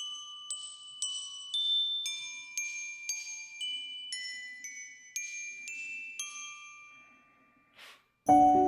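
Intro music: a melody of high, ringing, bell-like notes struck about twice a second, fading out, followed by a short whoosh near the end.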